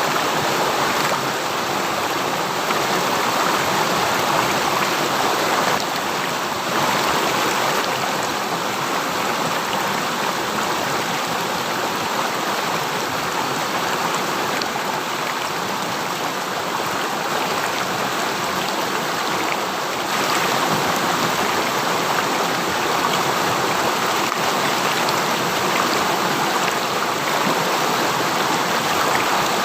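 River stream flowing over rocks: a steady, dense rushing of water with no pauses.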